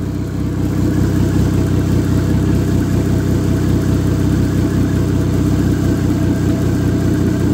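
Dodge Neon SOHC four-cylinder engine idling steadily on an engine test stand, running open through a stubby header. It has just settled to an idle after running rough from too much fuel pressure, with no fuel pressure regulator fitted.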